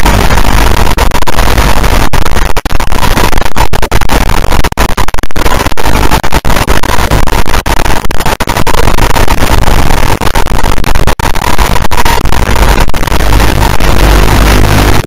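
Loud, steady static hiss from an analog FPV video link's audio channel, broken by many brief dropouts. A faint steady tone runs underneath.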